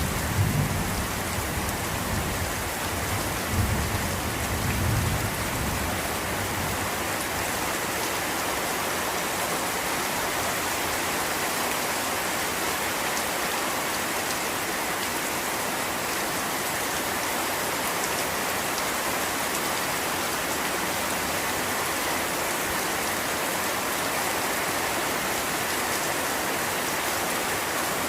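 Steady heavy rain, a dense even hiss of drops on a surface. Two low rumbles sound in the first five seconds.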